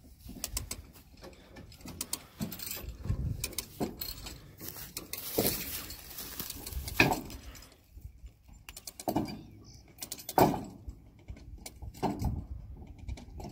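Hand-cranked trailer winch ratcheting as it drags a car up onto a flatbed car trailer: a run of uneven clicks from the pawl and cable, with a few louder knocks about halfway and again after ten seconds.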